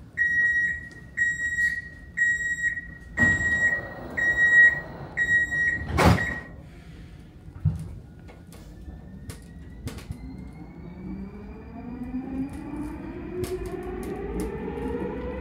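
Metro train's door-closing warning beeping about twice a second, then the sliding doors slide shut with a knock about six seconds in. The traction motors then whine steadily higher in pitch as the train pulls away and accelerates.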